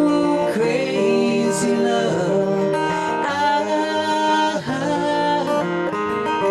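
Live country-folk music: acoustic guitar strumming under a sung melody line with held, bending notes.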